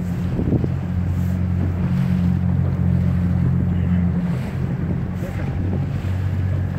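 Outboard motor of an inflatable boat running at low speed, a steady low drone that shifts slightly in pitch now and then, with wind on the microphone and water rushing along the hull.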